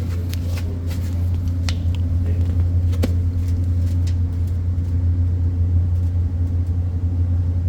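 Boiler-room machinery running with a steady low hum, with a few faint scattered clicks.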